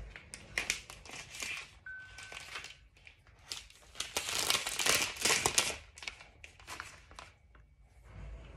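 Thin plastic protective film being peeled off a new iPad and crinkling in the hands, in irregular crackles that are loudest about four to six seconds in.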